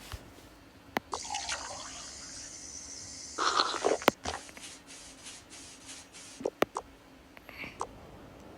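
Kitchen tap running into a sink for about three seconds as dishes are washed, then briefer splashes, with a few sharp clinks of dishes.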